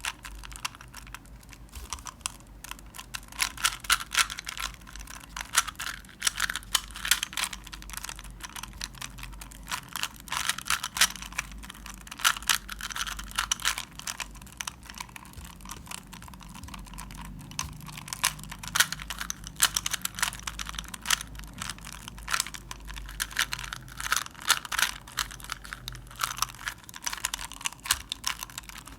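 Plastic Rubik's Cube being turned quickly by hand: rapid, irregular clicking and clacking of the layers, in bursts of quick turns with short pauses.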